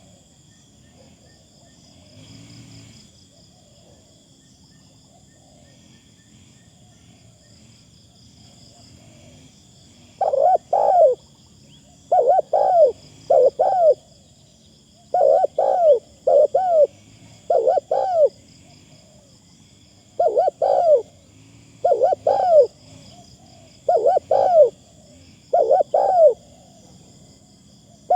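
Spotted dove cooing: short phrases of two or three mellow coo notes, repeated every couple of seconds, starting about ten seconds in. A steady high insect buzz sits underneath.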